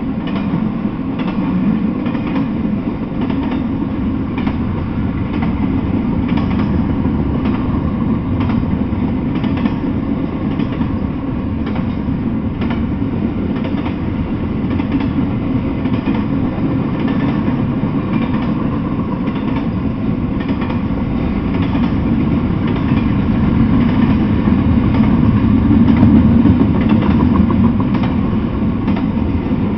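Double-stack intermodal freight train rolling past: a steady rumble of steel wheels on rail with faint clicks repeating through it, swelling a little near the end.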